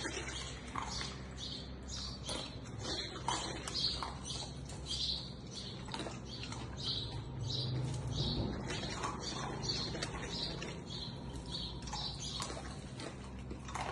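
A golden retriever puppy eating dry kibble from a stainless steel bowl: crunching and clicks of kibble and muzzle against the metal. A short high chirp repeats about every half second over it.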